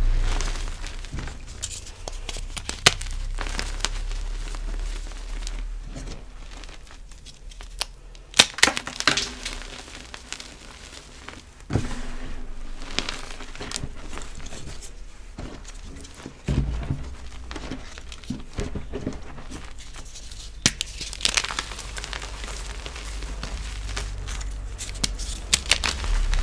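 Crispy reformed gym chalk being crushed and crumbled: irregular crunching and crumbling, with a few sharp, loud cracks scattered through.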